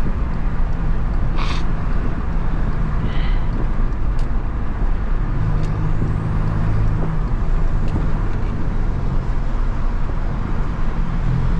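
Stage 2-tuned Volkswagen Jetta TSI's turbocharged four-cylinder engine pulling on the road, its note swelling about halfway through, with a thin, fine turbo whistle rising faintly above it. A short click about a second and a half in.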